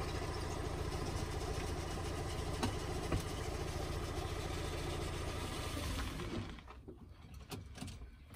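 Fiat Panda engine running steadily as the car moves off slowly, heard from outside the car, then stalling about six and a half seconds in. This engine stalls easily when pulling away. A few light clicks follow the stall.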